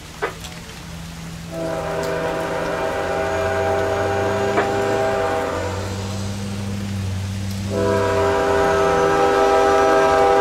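CSX freight locomotive's air horn sounding several notes at once: one long blast of about six seconds, then a second long blast starting near the end. The low hum of the locomotive's diesel engine runs underneath.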